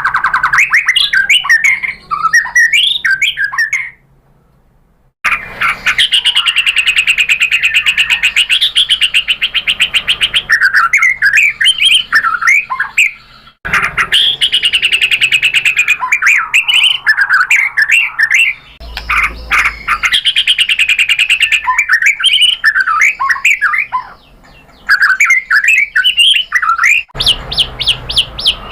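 White-rumped shama (murai batu) singing loudly: fast, varied whistled phrases and rapid trills, in spliced recordings that cut off abruptly, with a silent gap about four seconds in.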